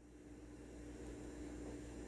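Faint steady hiss with a low steady hum, growing slightly louder: quiet kitchen background while the pan of chickpeas cooks.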